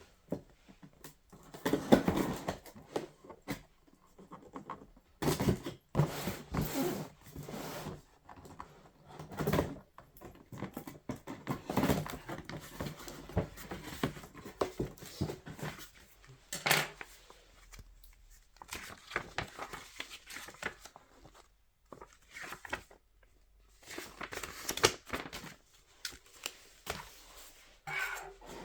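Intermittent handling noises: rustling, clicks and light knocks in short irregular bursts with brief quiet gaps between.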